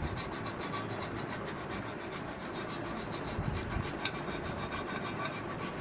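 A metal screwdriver tip rubbing and scraping along the freshly glued fabric spider of a loudspeaker, pressing it down so the glue bonds. It makes a steady, rapid, even scratching.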